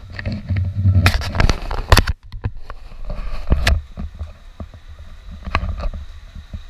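Low rumbling handling and wind noise on a handheld action camera's microphone, with clusters of loud knocks and clicks about a second in and again near the middle and toward the end.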